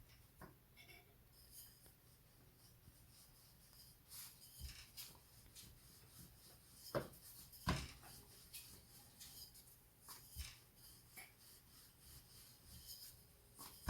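Faint rubbing of a rolling pin rolling out paratha dough on a board, with a few soft knocks, the plainest two about seven and eight seconds in.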